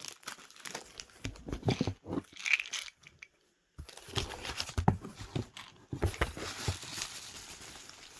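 Packaging crinkling and rustling with small knocks as items are handled and taken out of a gift box, cutting out briefly about three seconds in.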